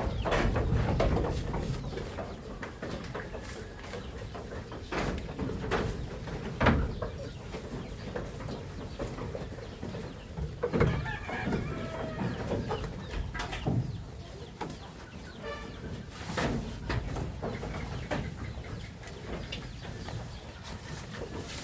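Chickens clucking among farm animals, with scattered sharp knocks; the loudest knock comes about a third of the way through.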